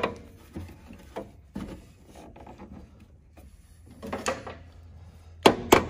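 Light metal clinks and knocks of a tool being fitted into the cutterhead of a planer. Near the end comes a quick series of sharp, ringing metal taps, about three a second.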